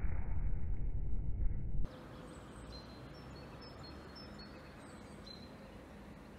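A loud, muffled noise, heaviest in the low end, that cuts off suddenly about two seconds in. It gives way to quiet outdoor ambience with a few faint, high bird chirps.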